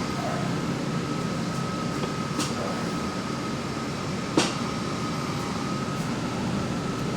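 Steering of a BMW E39 530i clicking as the wheel is turned: a faint click about two and a half seconds in and a sharp, louder one about four seconds in, over a steady running hum with a thin steady whine. The owner traced the click to loose bolts at the steering rack connection.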